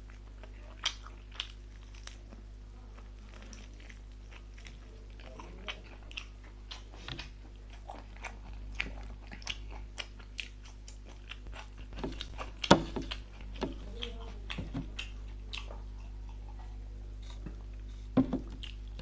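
Close-up eating sounds: a person chewing and biting food, with many short wet mouth clicks and crunches. The loudest comes about two-thirds of the way through. A steady low hum runs underneath.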